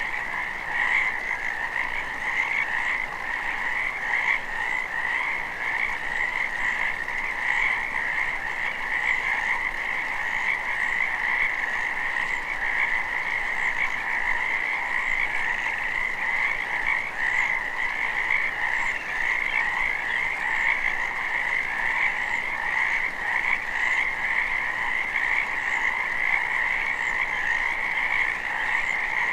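A pond full of frogs croaking together in a dense, unbroken spring chorus: many overlapping calls at two pitches, one lower and one higher, holding steady throughout.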